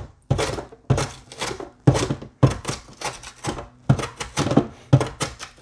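A red potato on a hand guard pushed back and forth across the crinkle-cut blade of a plastic mandoline-style vegetable slicer, cutting ripple chips. About two slicing strokes a second, each starting sharply and fading quickly.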